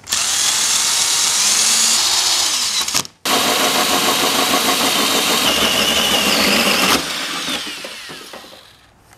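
Power drill spinning a 4¼-inch hole saw through the sheet-metal fender, a loud steady cutting noise. It stops for a moment about three seconds in, starts again, and cuts off about seven seconds in as the saw breaks through, the sound fading away after.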